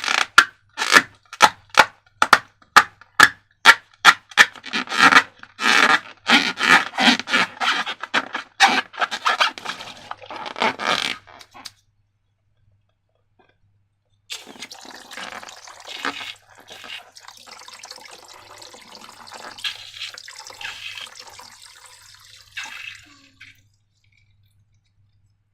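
Slime being squeezed and worked by hand: a rapid run of sharp, wet clicks and crackles for about eleven seconds, then a short pause, then softer squelching and rubbing.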